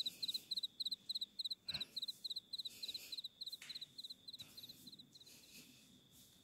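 A cricket chirping in a fast, even rhythm of about four double-pulsed chirps a second, high-pitched and growing fainter until it fades out past the middle. A single soft knock sounds about two seconds in.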